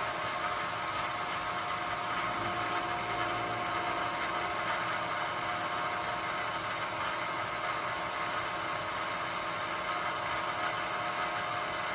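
Vertical milling machine running steadily, its spindle cutter machining a valve relief into a diesel piston crown; an even machine sound with no change in pitch.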